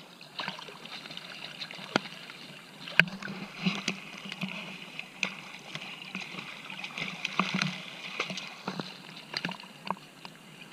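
Seawater splashing and lapping around a swimmer, with many short sharp splashes scattered throughout.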